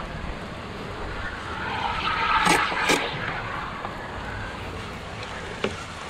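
Water sloshing and swishing in a plastic bucket as a hand swirls fish fillets through it, loudest about two seconds in, with two sharp clicks close together there and another single click near the end.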